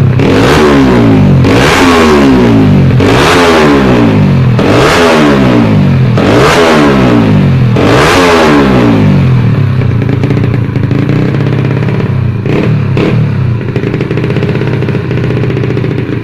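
Tuned motorcycle racing engine revved in about six quick blips, each rising sharply in pitch and falling back, then settling to a steady idle. Two short clicks near the end.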